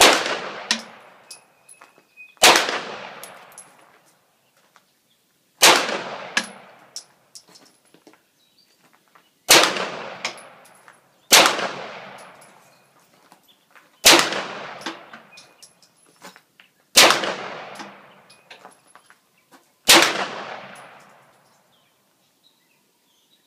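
Pistol fired as eight single shots, spaced about two to four seconds apart. Each sharp report rings out in a long echo under the shooting range's roofed shelter, with fainter pops in between.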